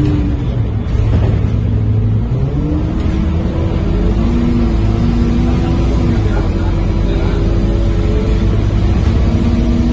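Scania K230UB city bus with a ZF automatic gearbox under hard throttle, heard from inside the cabin: a low engine rumble with a melodic gearbox whine over it. The whine drops away about half a second in and comes back rising near three seconds in, then holds steady.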